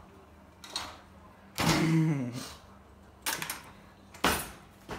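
Washed dishes being put away in a kitchen: several sharp knocks and clatters of crockery and cupboard doors, with a short, louder sound falling in pitch about two seconds in.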